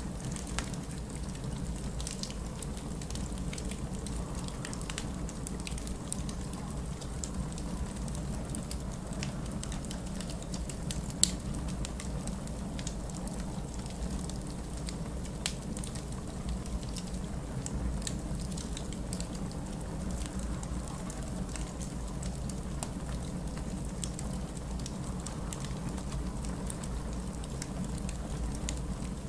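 Wood fire crackling in a fireplace, with scattered small pops and one louder pop about eleven seconds in, over a steady low rumble.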